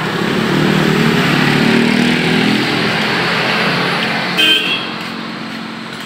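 Road traffic: a motor vehicle's engine running loudly as it passes, fading after about four seconds, then a short horn beep.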